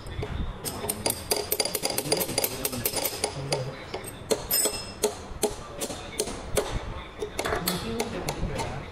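Hammer tapping a metal punch against a tractor dual-clutch pressure plate assembly: many quick metal-on-metal taps, several a second, with a short metallic ring.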